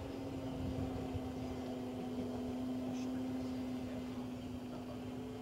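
Radio-controlled ESM Beaver scale model airplane's motor and propeller droning at a steady pitch in flight.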